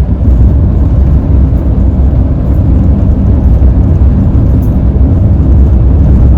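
Loud, steady low rumbling noise with no voices over it.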